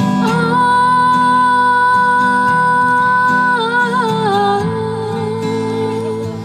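Acoustic guitar playing under one long wordless sung note, which slides down about halfway through and holds at a lower pitch.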